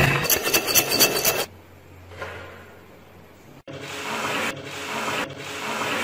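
Crunchy scraping and crackling as a blade pries caked mud off a hatchet, with clumps crumbling away. After a quieter moment, a bristle brush sweeps the loose mud crumbs across a hard surface in repeated strokes, a little more than one a second.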